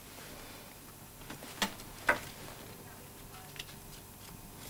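Quiet room tone with two short clicks about half a second apart, a little before the middle, and a fainter tick later.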